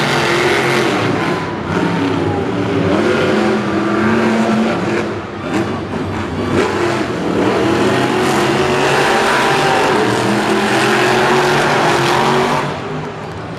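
Monster truck supercharged V8 engines revving and running hard, several at once, their pitch rising and falling. The sound eases off somewhat near the end.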